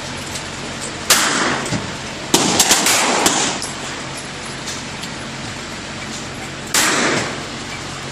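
Gunshots at a shooting range, each with a short echoing tail: one about a second in, three in quick succession about a second later, and a last one near the end.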